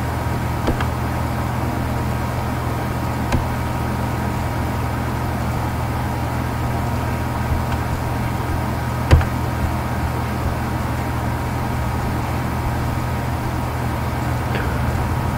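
Steady low electrical hum and background hiss on the recording, with a few isolated short clicks; the loudest click comes about nine seconds in.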